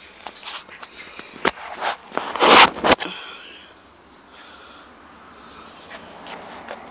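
Rubbing, scraping and knocking on the phone's microphone as it is handled and moved, with one loud, brief rustling scrape about two and a half seconds in, then quieter.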